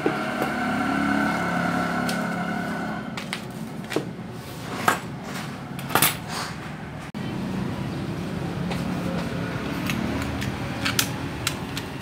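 Several sharp clicks and knocks of metal hand tools and parts handled on a hard worktable, the loudest about five and six seconds in, over a steady hum.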